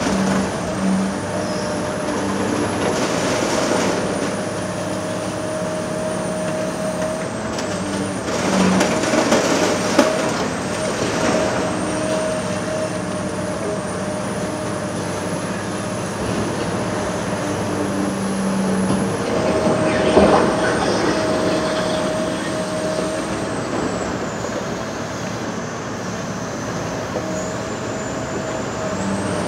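Heavy demolition excavator's diesel engine running steadily under load as it tears down a building, with surges of crashing, clattering concrete and debris several times, loudest about a third of the way in and again past two-thirds.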